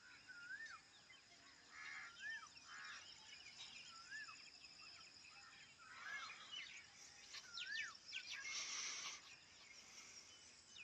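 Faint birdsong: one bird repeats a short rising-and-falling whistle about every one and a half to two seconds, with other faint chirps around it. A brief hiss comes about eight and a half seconds in.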